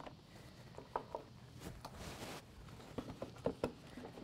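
Faint handling sounds of trading cards and a cardboard card-game box being lifted out of a wooden chest: a few soft knocks and taps, with a brief rustling scrape about two seconds in.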